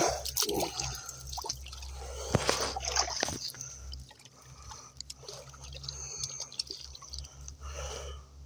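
Small splashes and drips of shallow water stirred by a hand at the water's edge, with scattered short knocks.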